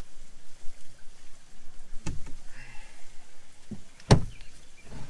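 Fold-down bed board in a Ford Transit Nugget's pop-up roof being swung down by hand: a knock about two seconds in, a fainter one, then a loud clunk near the end.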